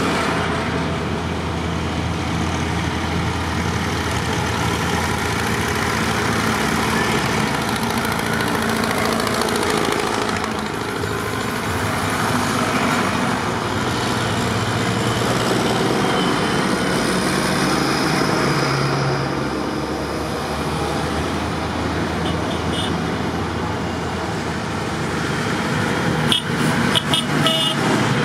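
Diesel tractors driving past close by one after another, engines running steadily at road speed with their pitch shifting as each comes and goes, over tyre noise on the tarmac. A short clatter of clicks comes near the end as a tractor passes close.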